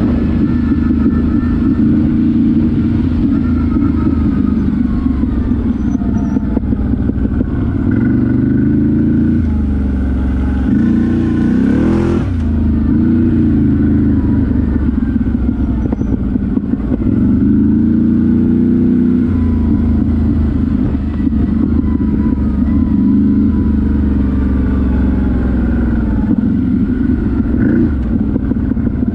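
Off-road ATV (quad bike) engine running under throttle, its pitch rising and falling several times as it revs, with one sharp climb in revs about twelve seconds in.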